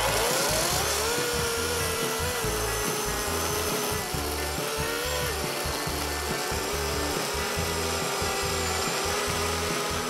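Greenworks G-MAX 40V brushless cordless chainsaw cutting through a thick log: the electric motor's whine rises as it spins up in the first second, then holds steady with small dips and wavers as the chain bites into the wood under load, over a steady rasp of cutting.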